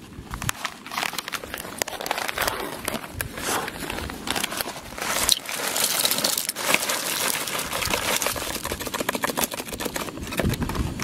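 Plastic pasta packet crinkling and rustling in the hand as dry pasta and cheese-sauce powder are shaken out of it into a pot of water.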